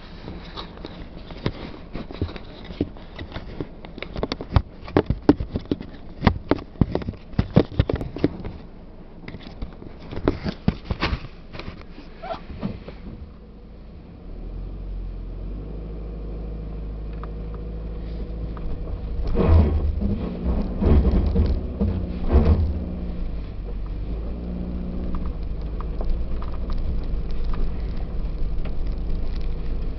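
Inside the cabin of a 2018 Subaru Outback crawling over a rough, snowy gravel trail. For the first half, frequent sharp knocks and rattles from the bumps sit over a low rumble. From about halfway a steady engine drone with tyre rumble takes over, broken by a few heavy jolts about two-thirds in.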